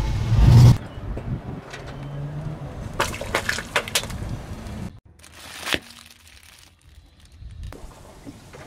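Car tyres rolling over and crushing small objects. A loud low rumble cuts off just under a second in, then a cluster of sharp cracks and wet squelches comes about three to four seconds in, and a single sharp pop near six seconds.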